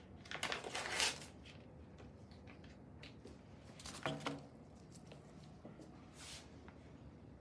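A sterile dressing packet being torn open, a rustling tear that peaks about a second in, followed by softer rustling and handling of packaging, with shorter noises around four and six seconds in.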